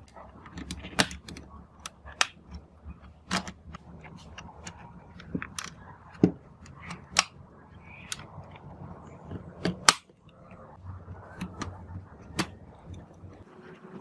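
Hard plastic parts of a Sharp WQ-T281 cassette recorder's housing clicking and knocking as the cassette door assembly and a plastic bracket are handled and pressed into the case: irregular sharp clicks, one louder snap about ten seconds in.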